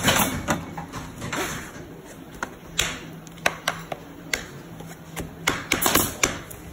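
Irregular sharp taps of a hammer knocking the corner joints of a wooden canvas stretcher frame together, starting about three seconds in, over a low steady workshop hum.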